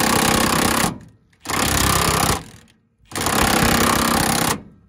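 Impact wrench hammering on a rusted cab-mount bolt in three bursts of about a second each, with short pauses between them; the bolt does not break loose.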